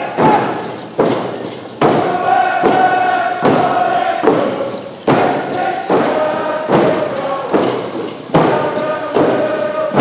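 Frame hand drums struck together on a steady beat, a little more than one beat a second, under a group singing a chanted song in long held notes.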